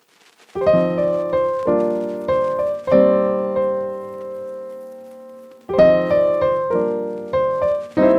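Background piano music starting about half a second in: a phrase of struck notes, a chord left to ring and fade, then a new phrase beginning near the end.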